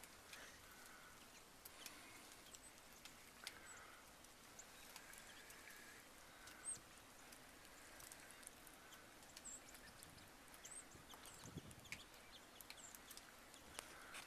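Faint, sparse high chirps of small birds at a feeder, with a few light ticks, over a near-silent snowy hush.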